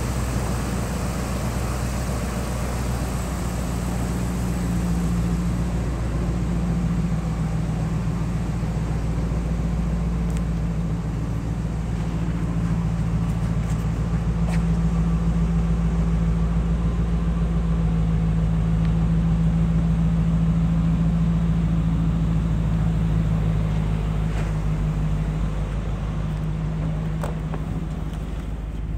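2008 Dodge Ram 1500's 4.7-litre V8 engine idling steadily.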